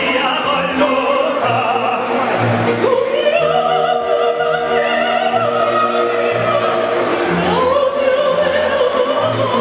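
Operatic singing into handheld microphones over orchestral accompaniment, the voice holding long notes with vibrato and stepping up to a higher held note near the end.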